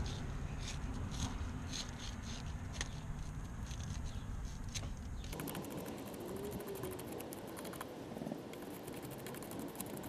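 Steel wire brush scrubbing white corrosion off a car battery cable terminal clamp: a run of quick, scratchy strokes. The low background hum drops away about five seconds in.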